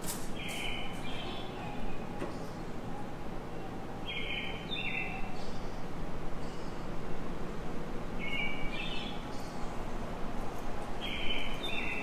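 A repeating two-note, bird-like call tone, a short higher note followed by a slightly lower one, sounding about every four seconds over the steady background noise of a large hall.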